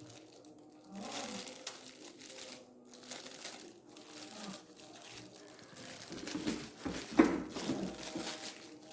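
Plastic toy packaging crinkling and rustling as it is handled, with faint voices in the background and a sharper, louder rustle about seven seconds in.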